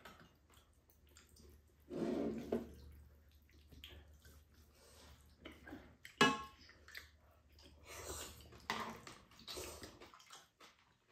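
Wet slurping and chewing of kimchi udon noodles in short irregular bursts, with a sharp clink of utensils on the dishes about six seconds in.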